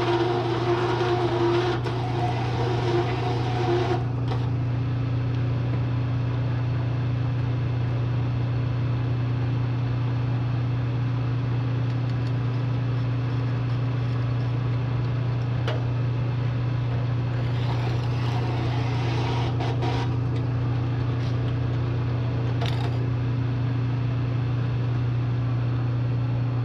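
Bridgeport milling machine running with a steady low hum while a hole saw cuts into a steel tube. The cutting noise is loud for the first four seconds, then drops away to the machine hum, and comes back briefly about eighteen seconds in.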